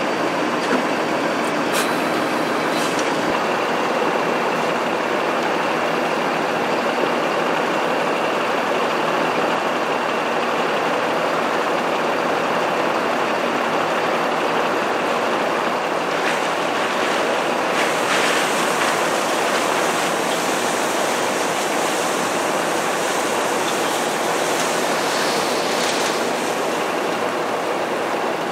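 Steady machine noise of a tractor running a hydraulic high-dump forage wagon as it tips chopped corn silage into a truck. A brighter hiss joins about 18 seconds in, as the silage pours.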